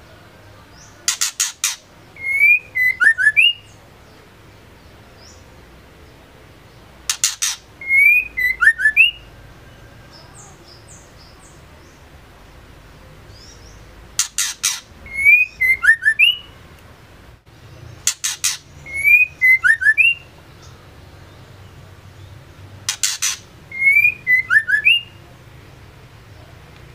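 Female white-rumped shama calling in five separate bouts. Each bout is a quick run of sharp clicks followed by a few short whistled notes.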